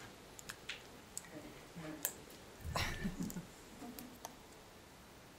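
Quiet room with scattered small clicks and taps, a soft bump near the middle, and faint murmured voices in the background.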